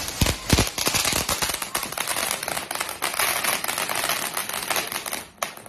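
Fireworks going off as a rapid run of crackling pops for about five seconds, cutting off near the end.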